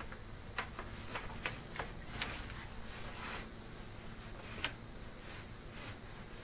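Scattered light clicks and ticks, about eight of them at uneven intervals, from the sewer inspection camera's push cable and equipment as the camera is worked along the line. A faint steady low hum runs underneath.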